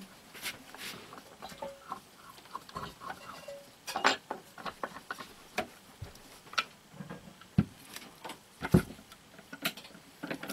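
Irregular clicks, taps and knocks of hard plastic parts being handled and fitted together, a bolt and toroid assembly going onto a clear plastic frame. A few sharper knocks come from about four seconds in onward.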